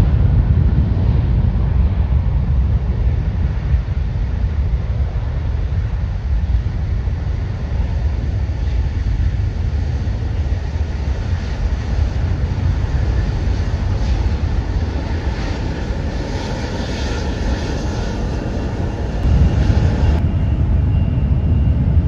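General Electric CF6-80C2 turbofans of an Airbus A300 freighter at takeoff power, a loud, steady low rumble through the takeoff roll and lift-off. A thin whine shows over the rumble through the middle, and the sound grows louder again near the end.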